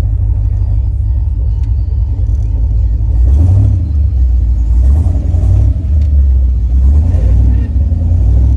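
1968 Camaro's 327 small-block V8 running through chambered exhaust, a steady low engine sound that gets louder in several stretches from about three seconds in.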